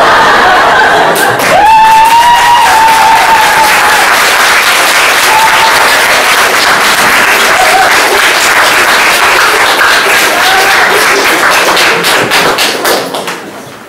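Hall audience applauding and cheering at the end of a sketch. The applause fades out in the last second or two, where a few single claps stand out.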